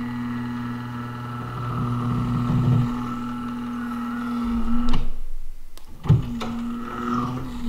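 Power-Pole shallow-water anchor's electric hydraulic pump running steadily as the 8-ft blade is cycled up and down to purge air from the hydraulic lines. The pump cuts off about five seconds in, with a couple of clunks, and starts again about a second later.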